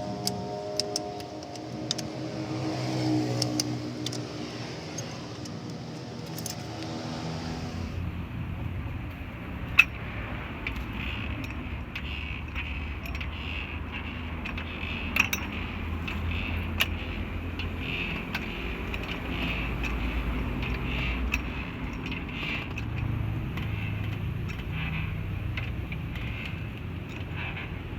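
Guitar background music for about the first eight seconds. Then metal clinks and clanks of a wheel brace working the car's wheel nuts loose, with two sharper clanks, over a steady low rumble.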